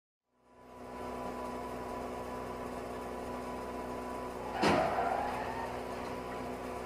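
Steady electrical hum from the dashcam recording, with a few held tones. About four and a half seconds in, one sudden loud bang, as of a collision, followed by a brief squeal that fades.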